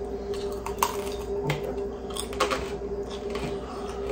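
Chewing thin-crust pizza close to the microphone, the crisp crust crunching in scattered short clicks, over a steady low hum.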